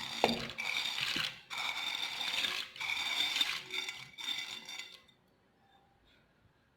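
Dry tortiglioni pasta being tipped into a cooking pot, a dense rattling rush in several pours that stops abruptly about five seconds in.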